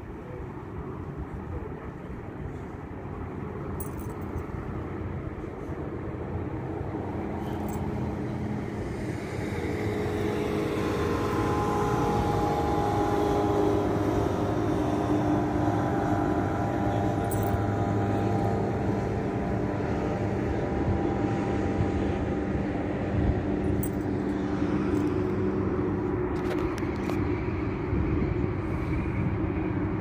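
Motorboat engine running with a steady drone, growing louder over the first dozen seconds and then holding, over a low rumble of wind and water.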